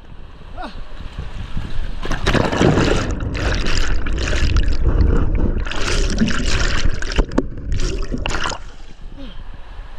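Water rushing and splashing in loud, irregular surges as a person slides down a natural rock water slide and plunges into the pool below.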